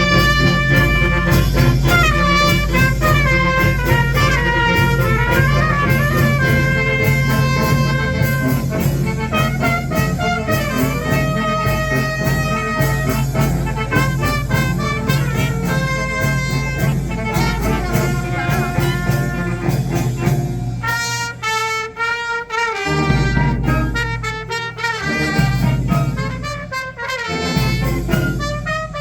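Youth fanfare band of brass and drums playing: trumpets carry the melody over lower brass and a steady drum beat. From about 21 seconds in, the band plays short, clipped phrases with brief gaps between them.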